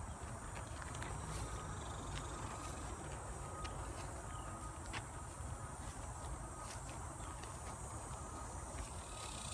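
Insects trilling steadily in a high, faintly pulsing hiss, with footsteps in dry grass giving scattered soft crunches and a low rumble of wind on the microphone.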